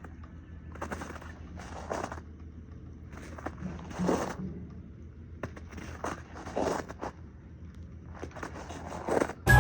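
Footsteps crunching on frozen slush and ice, about one step every half to three-quarters of a second. Music starts just before the end.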